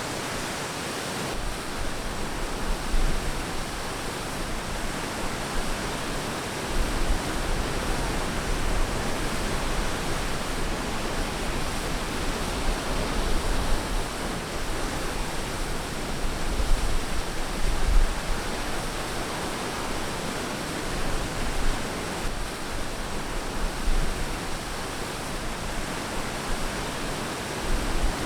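Ocean surf washing onto a beach: a steady rushing noise with small swells in loudness and no distinct single crashes.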